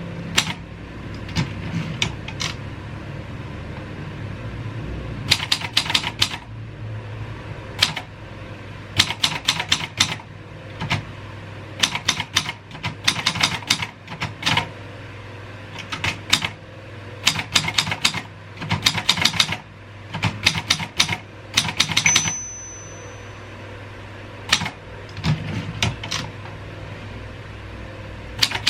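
Royal 202 manual typewriter being typed on: quick runs of key strikes in bursts with short pauses between words. About three quarters of the way through comes a single short ring, the margin bell, over a steady low hum.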